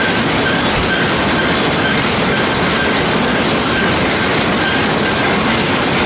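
Round baler running, its pickup and roller chain drive turning with a steady metallic clatter and a faint high chirp about twice a second.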